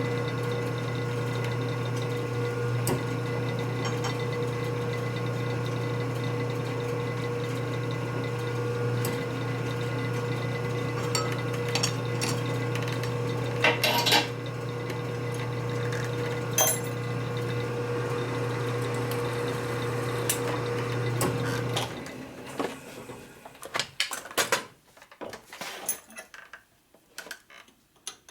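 An electric machine tool's motor running with a steady hum, with occasional metal clinks and scrapes on top; about 22 seconds in the motor switches off and winds down, leaving scattered metal clinks of parts and tools being handled.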